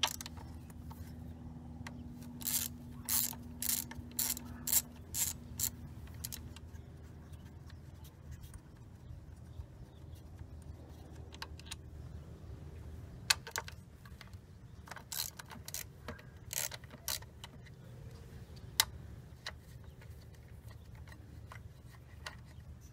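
Socket ratchet clicking in quick runs while loosening the ignition coil bolts: one run of clicks a couple of seconds in, a second run about ten seconds later, and a few single clicks between, over a faint steady low hum.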